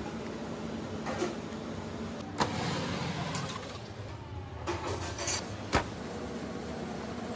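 Steady hum of commercial kitchen equipment, with a few sharp clicks and knocks from handling pans and tools. A louder low rumble runs from about two and a half to four seconds in.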